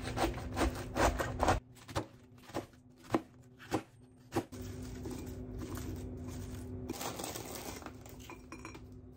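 Kitchen food-preparation sounds: a run of sharp clicks and knocks of things being handled, then from about halfway a steady hiss, over a low constant hum.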